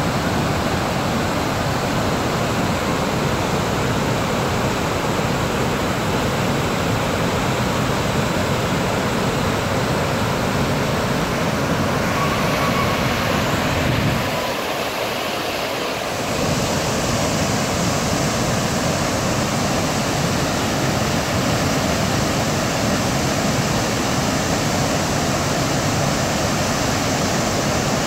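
Roar of Godchinmalki Falls in flood, a wide curtain of muddy floodwater pouring over the rock ledge: a loud, steady rush. The low rumble drops away briefly about halfway through, then returns.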